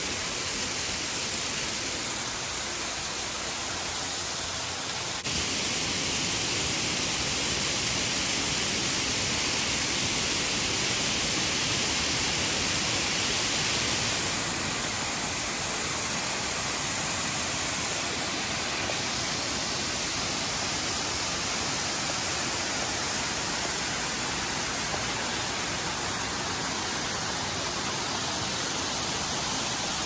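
Küp Waterfall's many thin cascades falling down a mossy cliff into a river pool, a steady rushing of splashing water. The rush gets abruptly louder about five seconds in and eases a little after about fourteen seconds.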